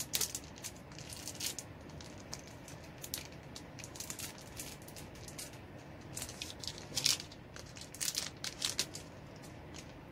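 Plastic wrapping on a new eyeshadow brush crinkling and crackling as it is pulled open by hand, in quick irregular crackles, loudest about seven seconds in.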